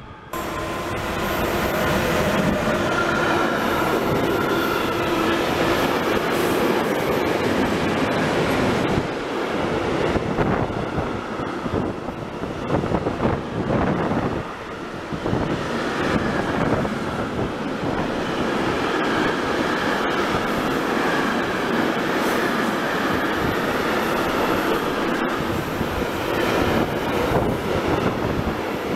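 Container freight train's loaded flat wagons rolling past at close range: a steady loud rumble and clatter of wheels on rail, with some wheel squeal.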